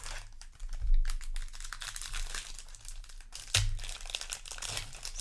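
Crinkling and rustling of a foil Magic: The Gathering booster pack wrapper being handled, with two louder knocks, about a second in and midway through.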